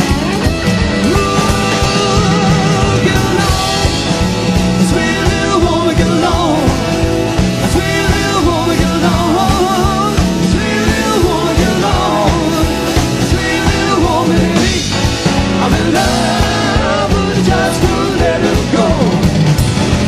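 Live rock and roll band playing at full volume: guitar, drums and keys with a steady driving beat.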